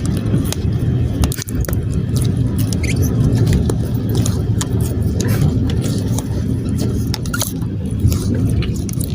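Slime being handled, with many small clicks and pops over a steady low rumble.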